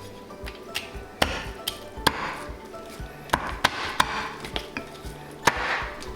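Heavy deba knife chopping through fish bone, about six sharp knocks at uneven spacing, over background music.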